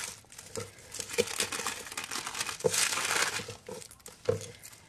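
Paper crinkling and rustling as hands gather pepper seeds and onion skins together on a paper sheet laid over newspaper, in irregular crackly bursts that are busiest about halfway through.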